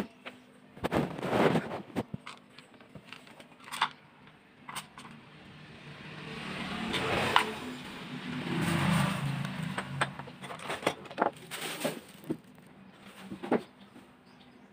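A road vehicle's engine passing by, swelling in the middle and fading away, with scattered sharp clicks and taps of small parts being handled.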